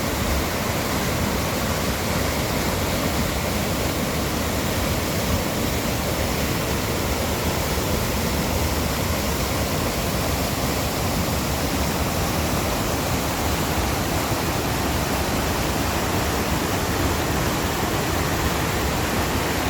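Mountain valley stream after rain: rushing water making a loud, steady noise.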